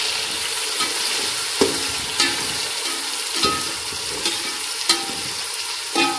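Chopped tomatoes and green chillies sizzling in hot oil with fried onions, stirred in a metal pot with a metal spatula. The spatula strikes the pot about five times, each a sharp ringing clink, over the steady frying hiss.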